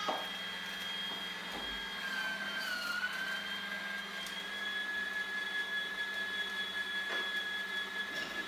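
Zelmer electric meat grinder with a shredder attachment running and grating raw potatoes: a steady high motor whine over a low hum, which dips briefly in pitch about three seconds in.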